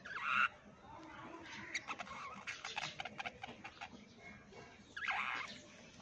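Budgerigars chattering: a short loud call right at the start and another about five seconds in, with quick clicks and chirps in between.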